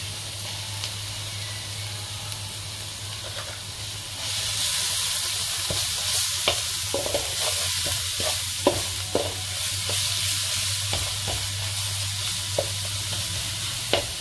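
Crushed ginger and garlic sizzling as they fry in butter in a non-stick pan, the sizzle growing clearly louder about four seconds in. A wooden spatula stirs through them, tapping and scraping against the pan now and then.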